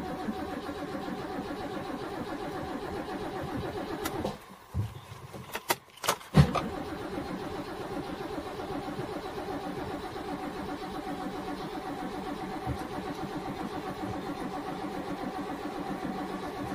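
A NASCAR stock car's V8 running at idle with an even rhythmic beat, cutting out about four seconds in. After about two seconds of quieter sound with a few short sharp blips, it fires again with a sharp burst, the loudest moment, and settles back into a steady idle.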